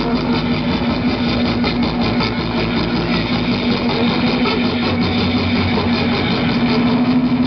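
Amplified electric guitar holding one steady droning note through the band's amps, loud and unbroken.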